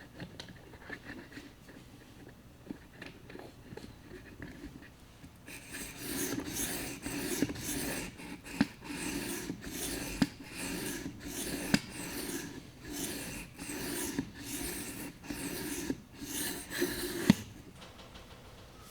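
Whetstone on an Edge Pro-style guided sharpener being stroked back and forth along a knife edge, rasping. After a few light taps, about a dozen even strokes start about six seconds in, roughly one a second, and stop shortly before the end.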